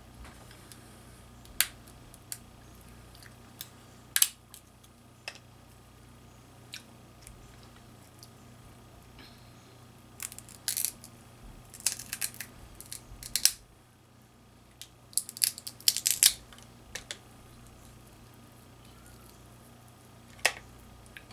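Shellfish shells cracking and clicking as they are broken open and handled while eating. Scattered single snaps come with several quick clusters of cracks near the middle.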